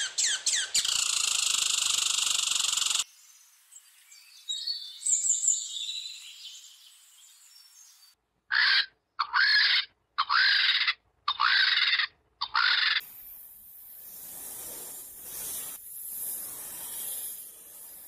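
Animal calls in sequence. First a tree squirrel's rapid chattering, running into a harsh buzzing call that stops about three seconds in. Then five loud, evenly spaced bird-like calls, each a short falling note, about one a second. Then a soft hissing noise to the end.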